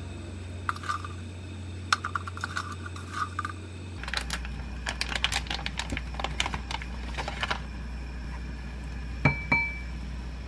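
A wooden spoon and a container clicking and scraping against a glass mixing bowl as chili flakes and ginger powder are spooned in. There is a run of small quick taps, then two sharp knocks on the glass about nine seconds in that leave a brief ring.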